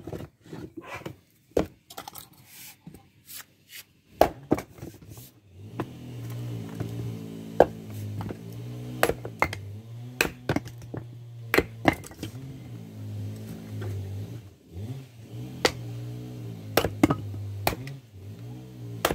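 Fiskars X17 splitting axe striking dry firewood on a wooden chopping block: a series of sharp knocks and cracks at irregular intervals as pieces split and clatter down. Background music comes in about five seconds in.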